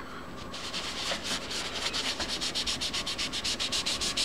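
A cotton ball rubbed quickly back and forth over paper, working powdered pigment into the drawing. It starts about half a second in, at roughly six even scratchy strokes a second.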